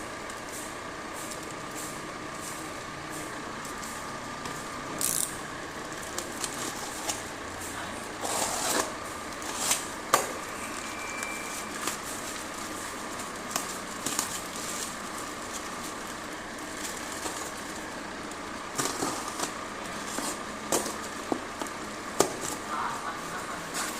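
A parcel's packaging being handled and opened: scattered crinkles, rips and clicks, busiest around 8 to 10 seconds in and again near the end, over a steady background hum.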